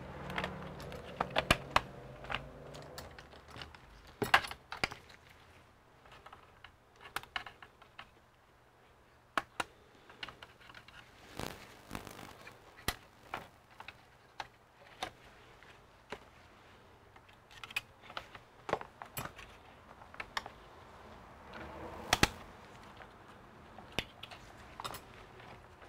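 Irregular sharp clicks and taps of plastic as gloved hands handle and press on the opened bottom chassis of a Dell Alienware 15 R3 laptop, with small parts knocking against the case.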